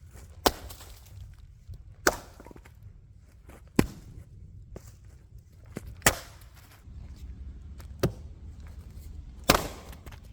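Helko axe striking eucalyptus firewood rounds while splitting them: six sharp, cracking chops about every one and a half to two seconds.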